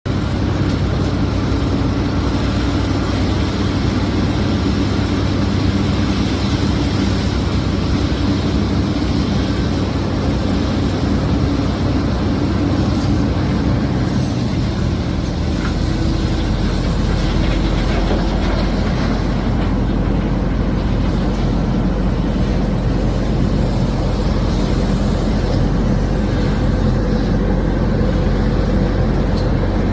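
Heavy diesel mining machinery running steadily, a loud continuous engine drone. The deep engine note shifts about halfway through.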